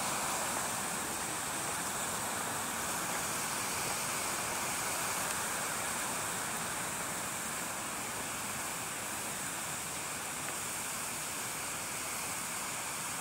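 A steady rushing noise, even throughout, with no distinct events.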